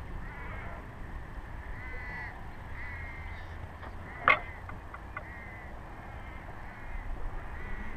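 A bird calling over and over, short caws about once a second. About four seconds in there is a single sharp click, the loudest sound, over a low rumble.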